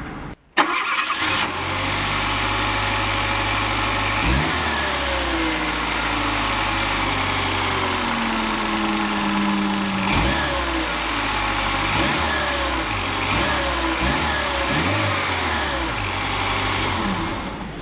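Fiat Panda 900 i.e.'s four-cylinder petrol engine starting and settling into a steady idle, running on newly fitted spark plug leads. The noise the owner was hoping to cure is still there.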